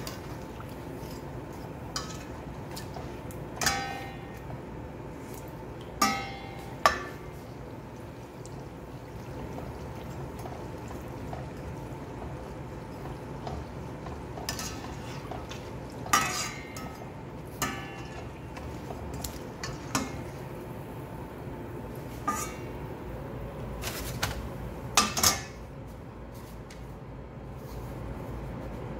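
Perforated stainless steel skimmer clinking against a stainless steel pot about a dozen times, each clink with a short metallic ring, while a doughnut fries in hot oil with a steady sizzle.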